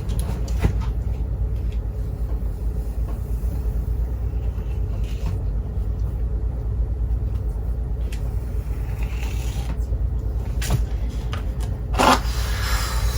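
Steady low rumble, with a few faint clicks and a louder rustle about twelve seconds in.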